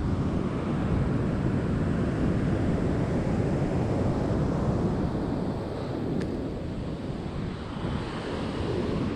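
Ocean surf washing on the beach, with wind rumbling on the microphone; the wash eases off a little about five and a half seconds in.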